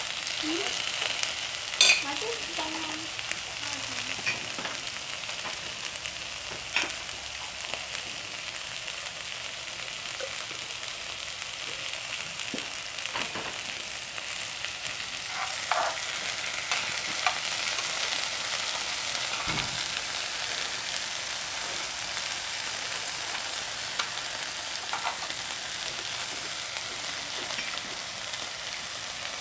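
Beef slices sizzling on a hot grill pan, a steady frying hiss, with a few sharp clicks, the loudest about two seconds in.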